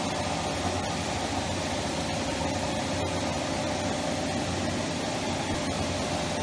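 1971 Boldrini Ribo 18 flanging machine running with no workpiece: its drive motors and rolls make a steady hum with a constant whine.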